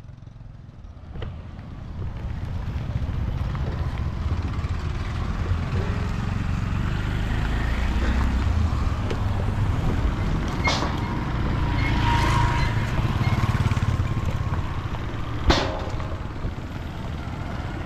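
Street ambience dominated by the low rumble of passing motor traffic, with two sharp knocks a few seconds apart in the second half.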